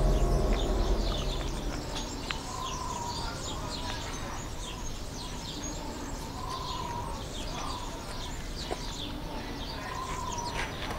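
Small birds chirping busily, many short quick falling chirps over a low steady background hum, as the music before it fades out in the first two seconds.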